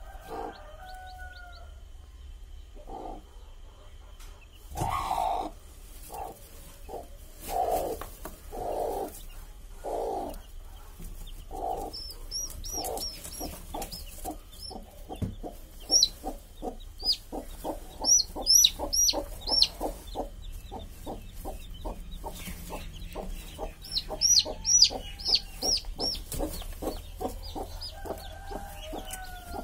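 Broody hen clucking on her nest, first in a few longer low calls, then in a quick run of short clucks. Newly hatched chicks peep in high, falling chirps; the chirps are loudest in bunches about halfway through and again towards the end.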